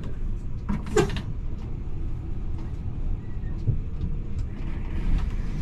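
Low, steady rumble of a Volvo B450R coach's diesel engine running at low speed, with a brief sharper sound about a second in and a few faint clicks.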